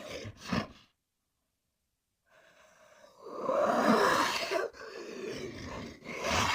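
Monster creature sound effect: a short noisy breath-like burst, then about a second and a half of silence, then a long hissing, breathy call that swells and fades, with another short burst near the end.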